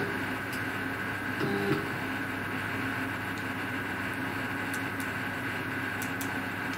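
A CNC router's stepper motors give two short whines as the head is jogged a small step from the handheld pendant, right at the start and again about 1.5 s in, nudging the pointed tool onto its start mark. Behind them runs a steady machine hum, with a few faint clicks.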